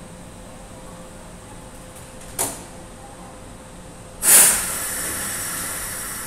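Compressed air hissing out of a Kobe Electric Railway De 1350 series train standing at the platform: a short hiss about two and a half seconds in, then a loud burst about four seconds in that trails off into a long, slowly fading hiss. A faint steady hum runs underneath.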